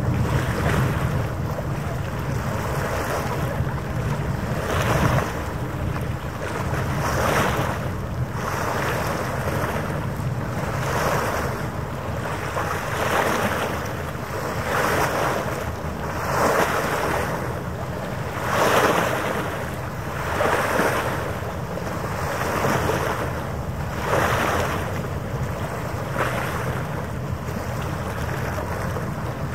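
Harbour water lapping in small waves, a swell of washing noise about every two seconds. Underneath are a steady low rumble and wind on the microphone.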